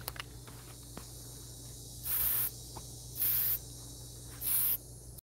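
Aerosol can of cold galvanizing spray paint hissing in three short bursts of about half a second each, sprayed onto steel anchor bolts.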